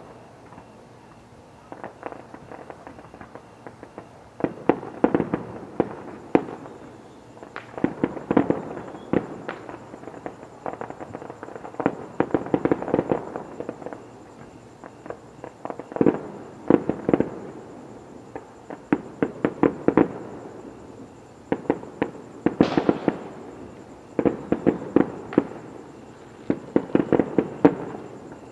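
Aerial fireworks going off in clusters of sharp bangs and rapid crackles every second or two. About 23 seconds in there is a brief falling whistle.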